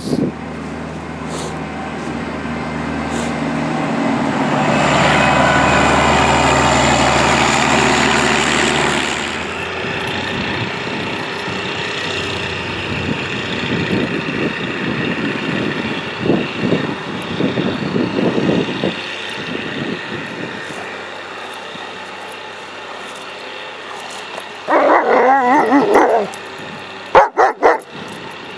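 A vehicle engine runs steadily, growing louder and then fading out about nine seconds in. Later a German Shepherd barks in a burst lasting about a second and a half, followed by a few sharp knocks.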